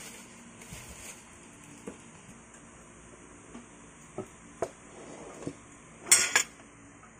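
Cutlery and dishes clinking: a few separate light clicks, then a louder short clatter about six seconds in.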